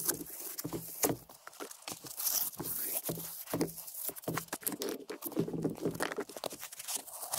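Foam pipe-insulation tubes being handled and fitted over PVC pipe by gloved hands: irregular rustling and rubbing with scattered light clicks and knocks.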